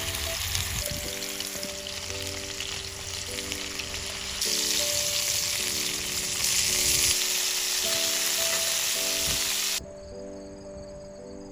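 Food sizzling as it fries in hot oil in a pan, getting louder about four seconds in and again a couple of seconds later. The sizzle cuts off suddenly near the end, leaving a faint rhythmic chirping.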